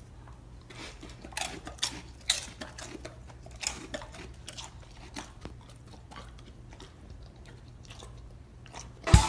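A puppy mouthing and chewing: soft, irregular wet clicks and smacks over a low steady hum. Music comes in loudly just before the end.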